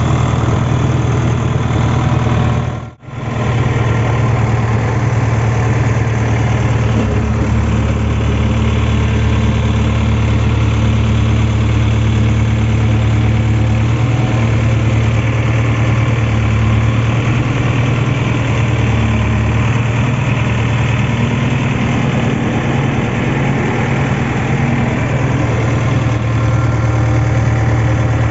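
Heavy diesel engine of a backhoe loader or tractor idling steadily, with a low, even drone; the sound drops out for an instant about three seconds in.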